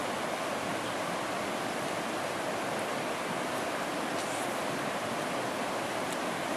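A rocky stream rushing steadily over stones, an even, unbroken water noise.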